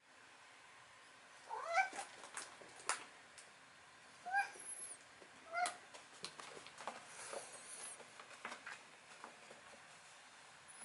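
Domestic cat giving three short meows, each rising in pitch, about a second and a half in and twice more a few seconds later. Light clicks and taps of its paws on the plastic toilet seat come in between.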